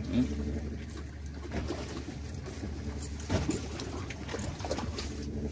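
Fishing boat's engine running, a steady low drone, with a few faint knocks on board.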